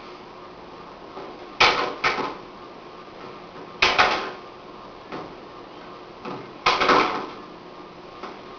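Sharp slaps of hands and forearms striking and parrying in a Jeet Kune Do partner demonstration, coming in quick pairs three times, with a few softer contacts between them, over a steady tape hiss.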